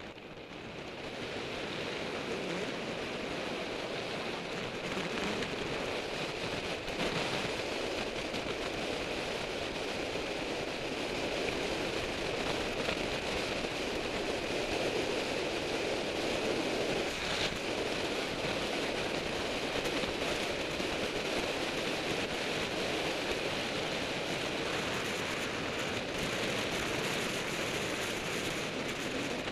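Wind rushing over the bike-mounted action camera's microphone as the bicycle coasts downhill at high speed. It rises over the first couple of seconds, then holds as a steady roar.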